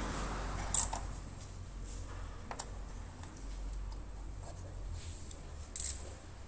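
A few sharp clicks, the loudest about a second in and again near the end, over a low steady hum.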